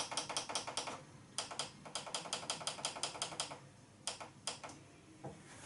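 Ninja Foodi pressure cooker's controls clicking as the cooking time is set: two fast runs of clicks, about six a second, with a short break between, then a few single clicks about four seconds in.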